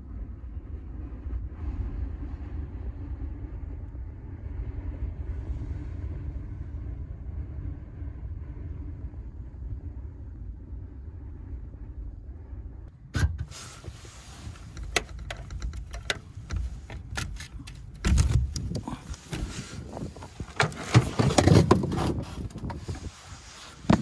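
Storm wind gusting against the truck, a muffled low rumble heard from inside the back of the truck. About halfway through it gives way to a harsher, crackling wind noise on the microphone, with loud gusts near the end.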